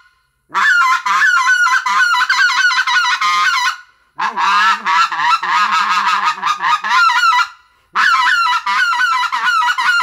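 RedBone Coyote Delrin short-reed goose call blown hard in three runs of rapid honks and clucks, each about three seconds long with short breaks between them. The middle run has a lower note under the honks.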